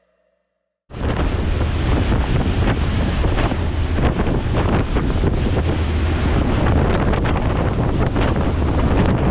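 Heavy wind buffeting the microphone, a dense rushing noise with a strong low rumble and constant flutter, cutting in abruptly about a second in after a moment of silence.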